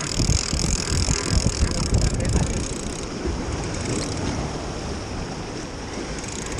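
Wind buffeting the microphone with a gusty low rumble, over surf washing against shoreline rocks.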